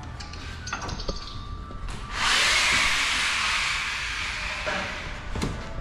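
A sudden loud hiss, like air rushing out, starting about two seconds in and fading away over a couple of seconds, after a few faint clicks and knocks of work on the engine.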